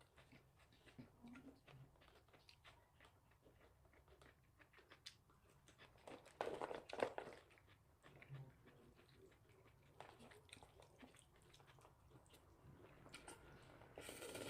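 Faint chewing and wet mouth sounds of a person eating jjajangmyeon noodles, with many small clicks and a louder noisy stretch about six to seven seconds in.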